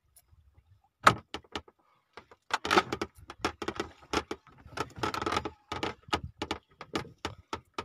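Rapid, irregular clicks and knocks of fishing tackle and gear handled on a small boat, with two short rasping stretches.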